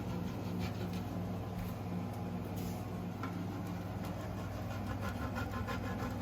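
Bacon frying in a pan, with a faint sizzle and scattered small pops over a steady low hum.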